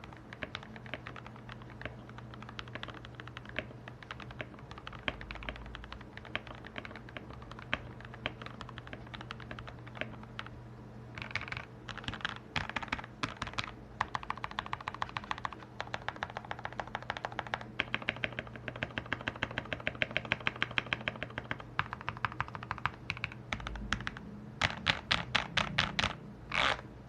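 Continuous typing on a Keychron K2 mechanical keyboard with lubed and filmed Gateron Yellow (KS3) linear switches, dampened with foam and tape and with tuned, lubed stabilizers. Keystrokes come in a steady stream, getting louder and faster from about a third of the way in, with a quick run of louder strokes near the end.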